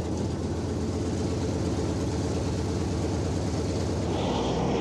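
Piston aircraft engines running steadily on the ground: a continuous low drone with a hum underneath, as twin-engine propeller airliners idle and taxi.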